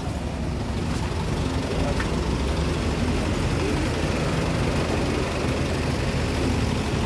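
Vehicle engine idling close by: a steady low hum with traffic noise.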